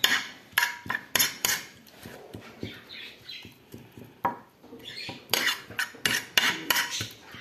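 Spoon clinking irregularly against a container while stirring a wet mixture of shredded napkins, water and shampoo.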